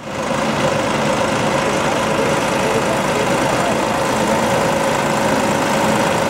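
Large diesel engine idling steadily, with a steady high whine over its running.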